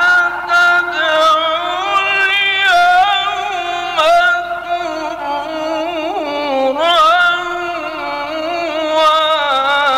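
A male Quran reciter chanting in the melodic mujawwad style, one voice holding long, ornamented notes whose pitch wavers and slides.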